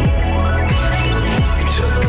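Music playing: a deep kick drum that drops in pitch about every 0.7 s, with quick hi-hat ticks over held chords, and no vocals in this stretch.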